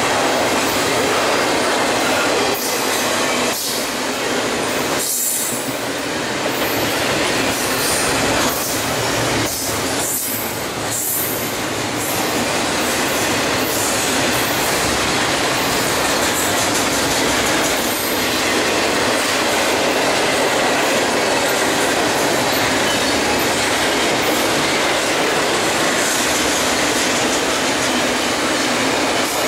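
Double-stack container freight train rolling past: a loud, steady rush of steel wheels on rail, with a few sharp clanks in the first dozen seconds.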